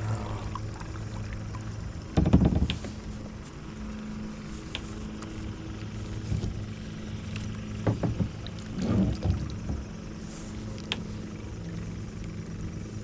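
A plastic kayak being handled: hollow bumps and knocks from the paddle against the hull, the loudest about two seconds in and more around eight and nine seconds, over a steady low hum.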